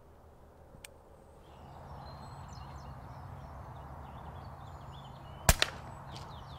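A single sharp shot from an Air Arms Ultimate Sporter pre-charged air rifle about five and a half seconds in, with a second crack a split second later as the pellet strikes a grey squirrel on the feeder. Behind it is a steady outdoor hiss with faint bird chirps.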